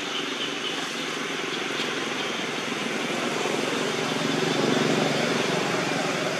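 A motor engine's drone that swells to a peak about four to five seconds in and then eases off, over a steady outdoor hiss.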